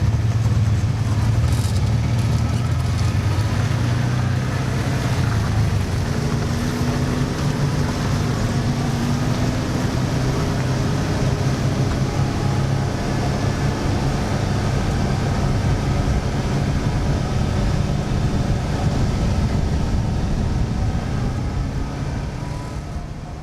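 ATV engine running steadily under way, with a continuous low drone and driving noise; it fades out near the end.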